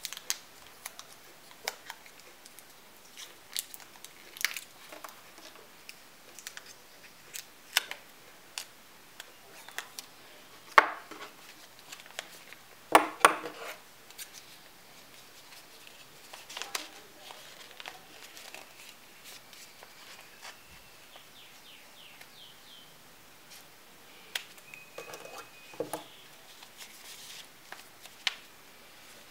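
Stiff folded paper being handled and pressed into shape: irregular crisp clicks and rustles, with a few louder clicks near the middle.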